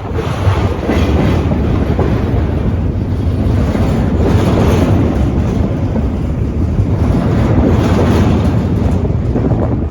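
A train passing close by: a loud, continuous rumble and rattle of steel wheels on the rails, swelling and easing every second or two.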